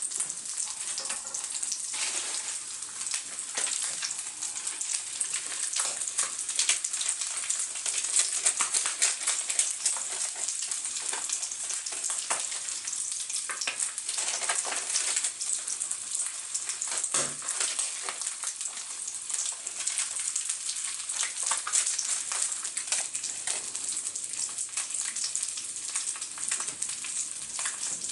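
Food frying in a hot pan: a steady sizzle with many small crackles spitting throughout, and a single knock about two thirds of the way through.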